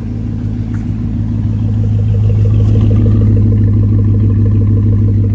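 2007 Hummer H2's 6.0-litre V8 idling, heard at the exhaust as a steady, low, even rumble. It grows louder toward the middle and eases off near the end.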